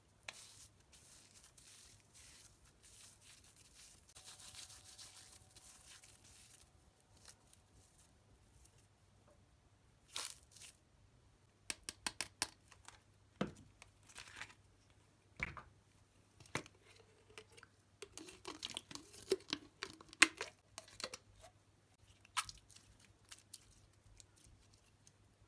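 Slime being handled and mixed: soft stretching and tearing sounds at first, then from about ten seconds in a run of sharp clicks, crackles and small pops.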